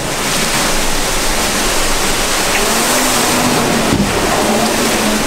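Steady rush of stream water pouring through the channel and bucket of a water-powered monjolo (trip-hammer corn pounder), with a single knock about four seconds in.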